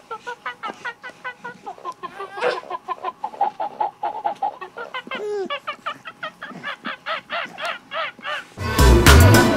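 A high voice making rapid short honking, squealing sounds, several a second, rising and falling in pitch. Loud music cuts in about a second before the end.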